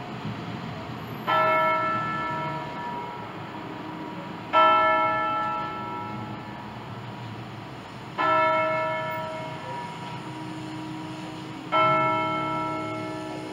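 Swinging bronze church bell from a ring of five cast by Pruneri in 1887, swung by hand in full circles. It strikes four loud strokes about three and a half seconds apart, and each stroke rings on and fades under the fainter hum of the other bells.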